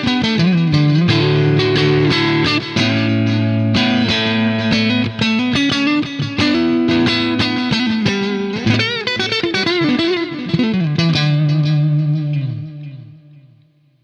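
Electric guitar with copies of DiMarzio Cruiser blade pickups, played as a single-note lead line with string bends and vibrato. A last low note rings out and fades away near the end.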